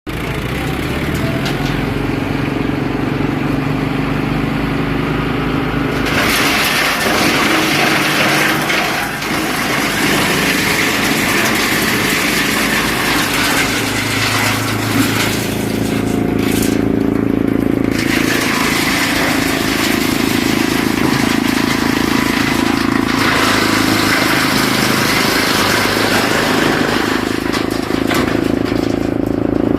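Engine-driven wood chipper running, a steady low engine drone joined about six seconds in by a loud rushing, grinding noise as material passes through the chipper; the grinding eases off for a couple of seconds about two-thirds of the way through.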